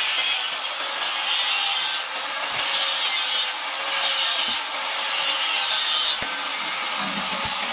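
Stick arc welding on square steel tubing: the arc gives a continuous crackling sizzle that changes in strength every second or so.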